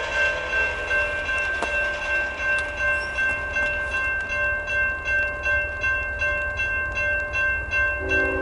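Railroad grade-crossing bell ringing, about two strikes a second, as the crossing gates lower. Near the end the approaching freight train's locomotive horn starts to sound.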